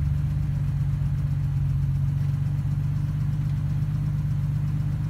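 Jeep engine running at a steady idle, a low even drone with no revving.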